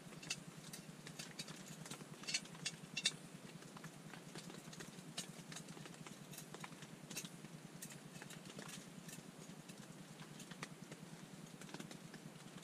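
Irregular light taps of rain on the tent, with a few louder metallic clicks about two to three seconds in as a backpack stove is screwed onto its gas canister.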